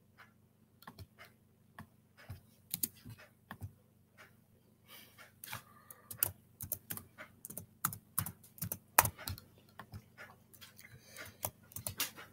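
Typing on a computer keyboard: irregular key clicks, sparse at first, then quicker and louder from about five seconds in.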